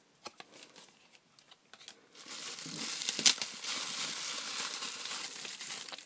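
Packaging being handled and unwrapped from a puzzle cube: a few light clicks, then from about two seconds in a continuous crinkling and rustling with one sharp snap a little after three seconds.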